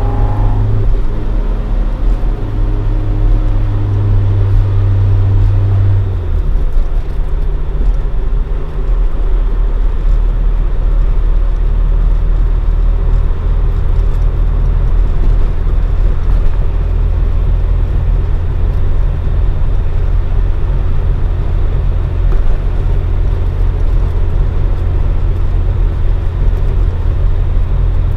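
Toyota AE86 Sprinter Trueno with a swapped AE111 20-valve 4A-GE on four individual throttle bodies and a Fujitsubo Legalis R exhaust, driving at steady revs. The engine note shifts about six seconds in, then runs on evenly under steady road noise.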